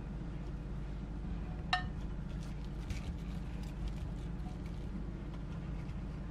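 Light taps of cut potato and onion pieces being set down in a pan, with one sharp clink about two seconds in, over a steady low hum.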